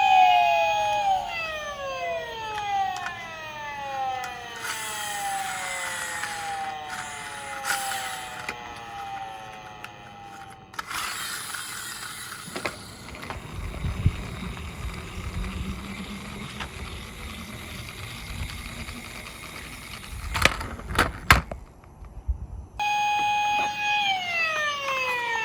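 A toy police car's electronic siren sounds, its tones sliding downward again and again for the first several seconds. Then comes a rumbling of the toy rolling down its slope, with a few sharp clacks and a brief hush. Near the end the siren tone starts again.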